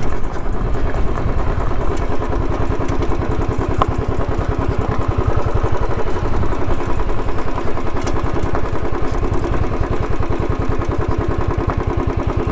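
Royal Enfield Thunderbird's single-cylinder four-stroke engine running at a low, steady pace while the motorcycle is ridden over rocky ground, its firing pulses evenly spaced.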